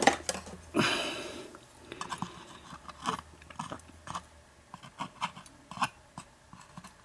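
Small metal lock pins and parts being handled and set down on a hard work surface: scattered light clicks and taps, with a short scraping rustle about a second in.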